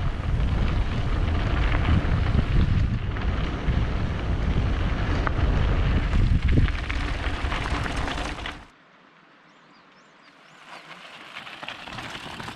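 Heavy wind buffeting the microphone while moving fast outdoors, with scattered knocks and rattles. It cuts off suddenly about nine seconds in to a quiet stretch with a few faint high chirps. The wind noise builds again near the end.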